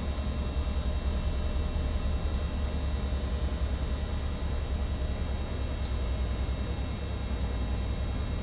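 Steady low machinery drone with a constant hiss and faint humming tones, and a few faint clicks of a computer mouse.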